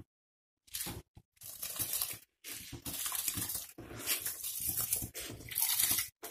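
Soaked basmati rice being poured from a plastic bowl into a pot of boiling water: grains sliding off the bowl and splashing in as a continuous noisy pour that starts about a second in and grows louder near the end.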